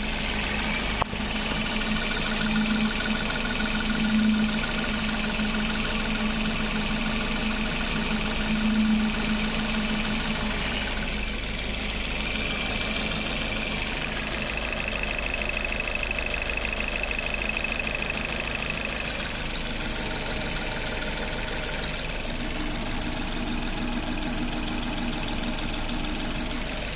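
Suzuki Ignis engine running steadily at idle, making the abnormal noise the owner is recording it for. A single sharp click about a second in.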